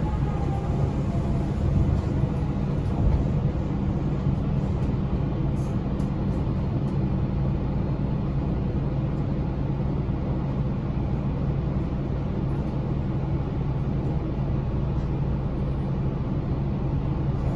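Steady low rumble and hum of an Okinawa Urban Monorail (Yui Rail) car running, heard from inside the car.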